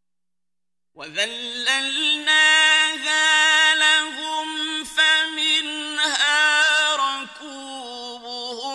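A male reciter chanting Quranic verses in the slow, melodic mujawwad style. After a second of silence, one voice draws out long held notes with ornamented turns and slides in pitch.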